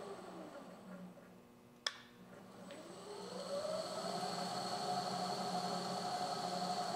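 Machine spindle motor driving a tap into a 3/8-24 set-screw hole in a steel bar: it winds down to a stop, a single click about two seconds in, then spins back up over a couple of seconds and runs steadily, the spindle reversing to back the tap out of the hole.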